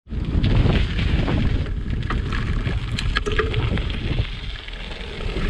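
Wind buffeting the microphone with the road rumble of a bicycle being ridden, and a short cluster of rattling clicks about three seconds in.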